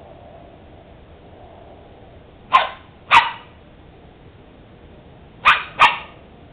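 A dog barking four sharp times, in two quick pairs about three seconds apart, at a squirrel it has cornered up a tree.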